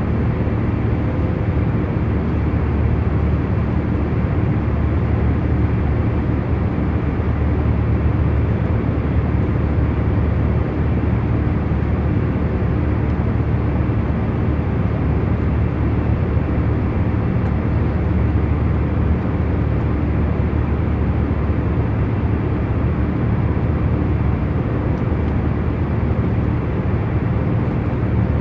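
Airliner cabin noise in flight: a steady, low rumble of engine and airflow with a faint hum, unchanging throughout.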